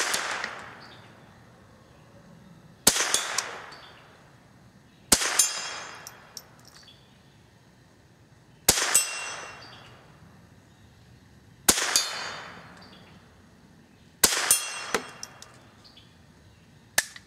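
Glenfield/Marlin Model 75C semi-automatic .22 rimfire carbine fired seven times in slow succession, about two to three and a half seconds between shots. Each shot is a sharp crack with a ringing tail that dies away over about a second.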